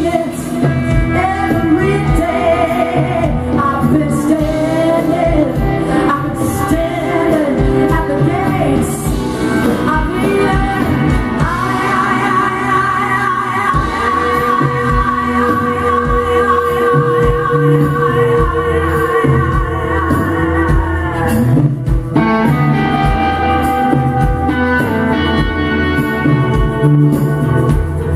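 Live band playing: a woman sings over acoustic and electric guitars, bass guitar and drum kit, holding one long note with vibrato in the middle before the band plays on.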